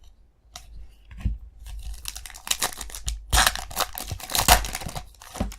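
A trading-card pack wrapper being torn open and crinkled. The crackling builds over the first couple of seconds and is loudest for a second or so past the middle.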